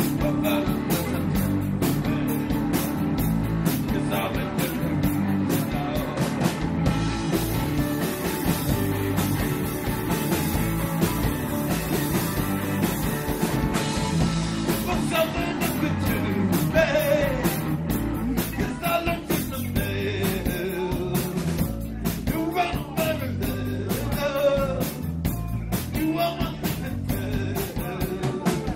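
Live rock band playing through amplifiers: electric guitars, bass and drums, with a man singing, his voice standing out more in the second half. A cymbal wash rings for several seconds partway through.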